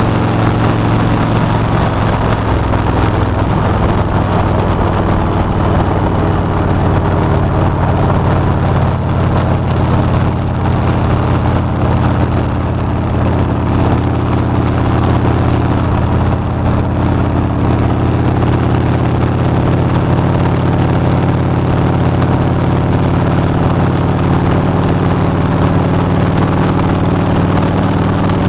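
Motorcycle engine running at a steady highway cruising speed, heard from the rider's seat, with wind rushing over the windshield.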